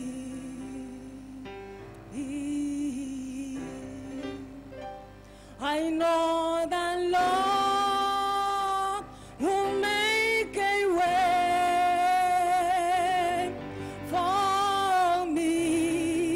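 A woman singing solo into a microphone, holding long notes with vibrato. The first five seconds or so are softer, then the singing grows louder.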